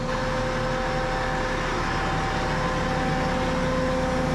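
Crane truck's engine running steadily at a constant pitch.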